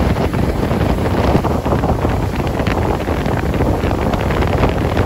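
Wind buffeting the microphone on a moving open motorboat, loud and gusty, over the rush of the boat's engine and water.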